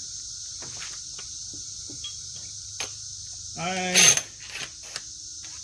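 Scattered faint metallic clicks and taps of hand tools working a rear shock bolt on a Polaris Ranger 500, over a steady high insect trill. A short spoken word and a sharp click come about four seconds in.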